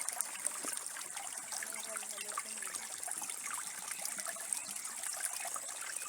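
Flowing water from a village water point pouring and splashing into a 20-litre container as it fills.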